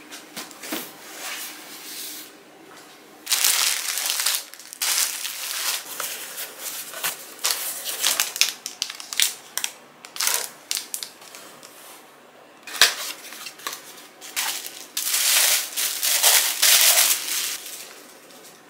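Cardboard box and crumpled paper packing rustling and crinkling as a parcel is unpacked by hand, in several irregular bursts, with one sharp tap a little after the middle.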